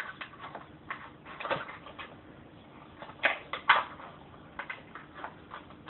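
Scissors snipping through a thin plastic bottle: a string of short, crisp cuts and clicks, with two louder snips close together past the middle.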